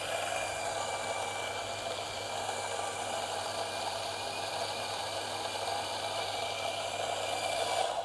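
Electric burr espresso grinder running on a timed dose, grinding coffee beans into a portafilter: a steady motor hum with a faint whine that cuts off suddenly near the end as the timer finishes.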